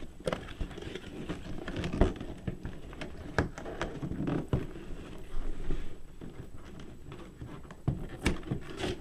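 Cardboard toy box being handled and opened, with scattered taps, knocks and scrapes of cardboard and packaging.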